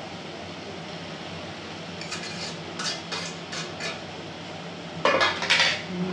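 A metal fork clinking and scraping against a stainless-steel plate as noodles are pushed off it into a frying pan. A few light clinks start about two seconds in, then a louder clatter of metal comes near the end.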